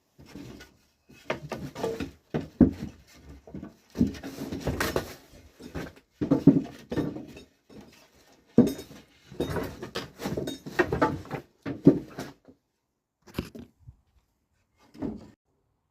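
Dog chewing and eating close up: irregular bursts of chewing and smacking with short pauses, thinning to a few single bites near the end.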